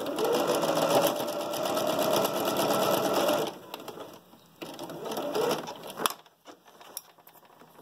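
Electric sewing machine stitching a seam through layered cotton fabric: a fast run of stitches for about three and a half seconds, stopping, then a second short burst, followed by a single click.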